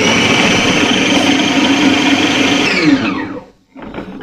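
Anex Deluxe food processor's electric motor running at speed, chopping white bread into crumbs, then switched off, its pitch falling as the blade spins down about three seconds in. A few light knocks follow near the end.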